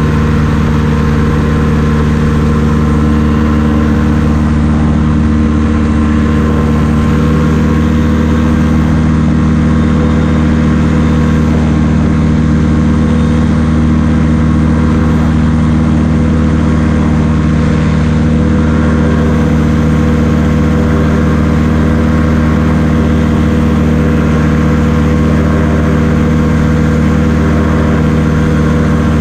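Hirth F-23 two-stroke flat-twin engine of a Quicksilver MX Sport ultralight running steadily in flight, its drone holding one constant pitch and level throughout.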